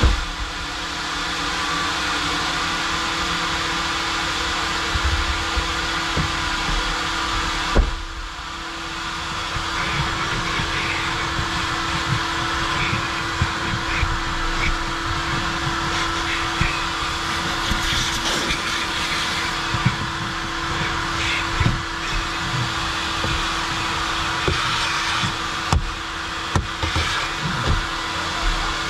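Coin-operated car wash vacuum running steadily with a constant hum, its level dipping briefly about eight seconds in. Scattered knocks and clicks come as the hose nozzle is worked over the car's interior.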